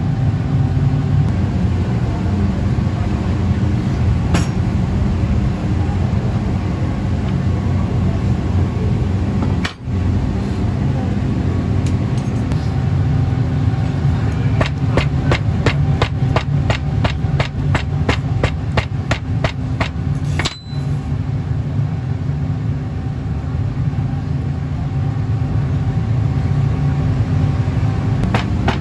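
A steady low motor hum, with a run of quick, evenly spaced taps, about three a second, starting about halfway through and returning near the end.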